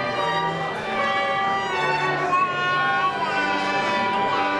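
Slow classical string music: a violin carries the melody in long held notes over sustained low bass notes.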